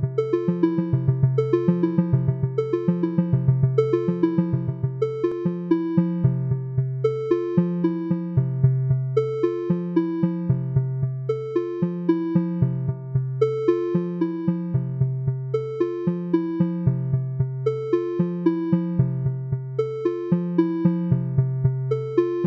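Keyboard music: a quick, looping pattern of short notes over sustained low bass notes, repeating evenly throughout.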